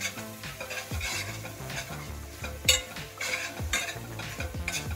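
Metal spoon stirring and scraping onions with chilli powder around a stainless steel pot, over sizzling oil, with a sharp clink against the pot a little past halfway.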